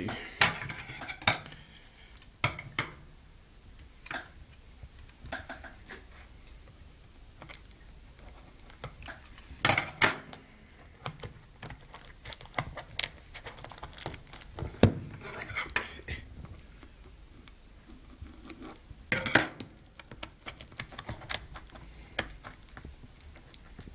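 Scattered clicks, taps and clatter of a DVD box set and its plastic packaging being handled, with louder knocks about ten, fifteen and nineteen seconds in.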